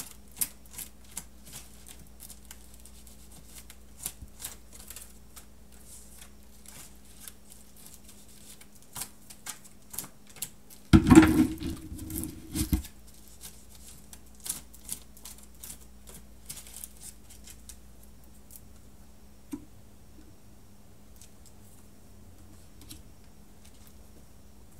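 A deck of oracle cards being shuffled and handled, with quick clicking and flicking of card edges and a louder, dense flurry of about two seconds near the middle. The clicks thin out in the last few seconds.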